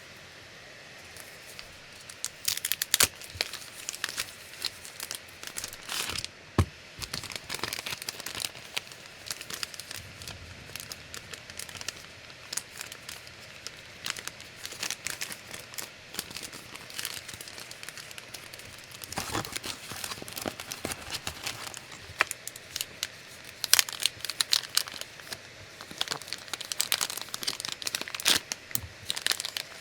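Packaging being handled and unwrapped: irregular crinkling and tearing rustles with louder crackling bursts scattered throughout.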